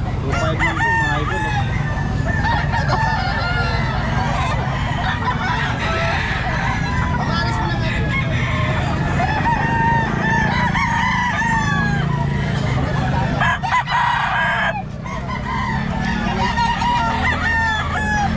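Gamefowl roosters crowing and clucking, many calls overlapping throughout, over a low steady hum.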